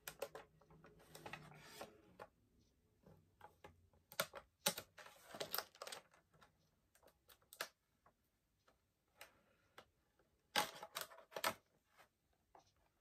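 Pocketknife cutting around the edges of a cardboard action-figure box, irregular sharp clicks and scratches of the blade and the handled packaging, busiest about four to six seconds in and again around ten to eleven seconds in.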